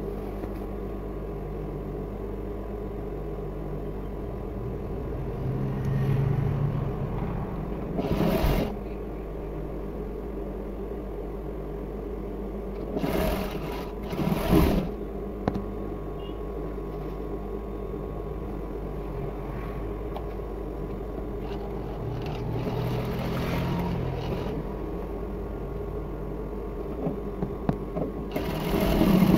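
Industrial sewing machine running: a steady motor hum, with a few short louder spells as it stitches and the fabric is pulled through.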